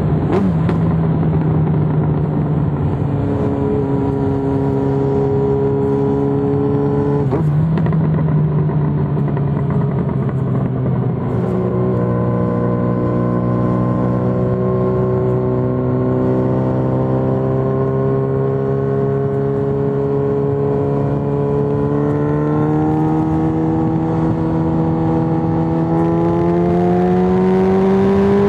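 Yamaha XJ6N's 600 cc inline-four running through an Arrow full aftermarket exhaust, held at a steady mid-range engine speed, with the pitch climbing slowly over the last few seconds as the revs rise.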